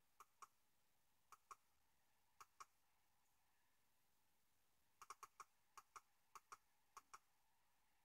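Faint computer mouse button clicks, each a quick press-and-release pair: three pairs spaced about a second apart, then a quicker run of five or six pairs from about five seconds in.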